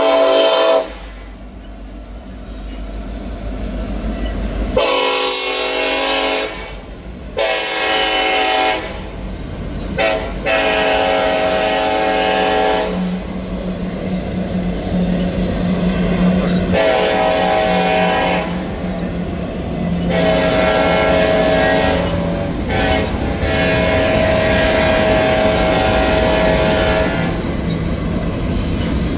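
Diesel freight locomotive air horn sounding a series of about six blasts, mostly long with one or two shorter, as the freight train rolls over a grade crossing. Under the horn, the cars passing close by make a continuous low rumble.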